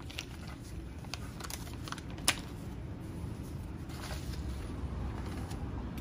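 A paper mailer envelope and a plastic-bagged parts pack rustling and crinkling as they are handled, with scattered light clicks and one sharp tap about two seconds in.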